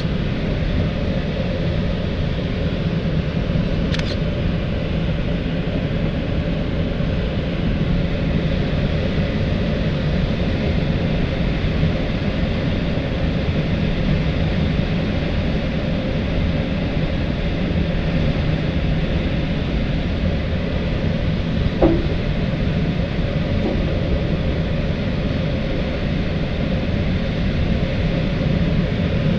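Steady rush of airflow in the cockpit of an L-23 Blaník glider in flight, with a constant low hum under it. There is one brief knock about three quarters of the way through.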